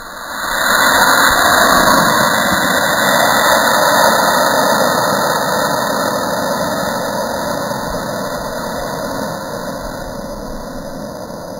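Estes C6-5 black-powder model rocket motor firing at liftoff: a loud rushing roar that starts suddenly and fades slowly over about ten seconds, drawn out as in a slow-motion replay.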